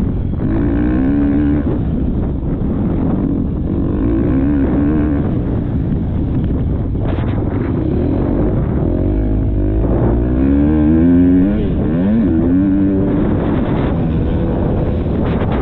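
Motocross bike engine revving up and down again and again, the pitch climbing and dropping as the throttle is worked, over heavy wind rumble on a helmet-mounted camera; the hardest run of revs comes about ten seconds in.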